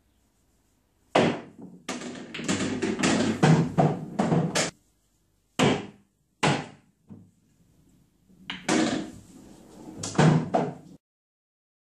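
Pool balls being struck and knocking together, hitting the cushions and dropping into the pockets of a pool table. A quick run of clacks and thuds comes about a second in, then a few single knocks, then another run, and the sound cuts off suddenly near the end.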